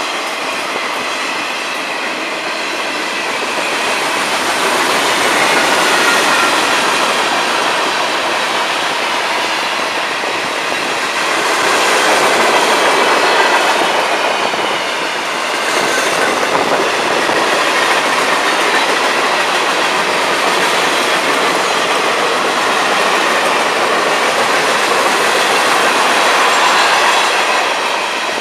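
Freight cars of a long train rolling past at close range: a steady rumble and rattle of steel wheels on the rails, with a faint, wavering high squeal from the wheels. The sound falls away near the end as the last car passes.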